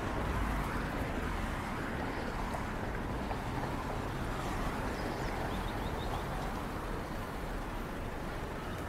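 Steady road traffic noise: an even low rumble with a hiss over it, no single vehicle standing out.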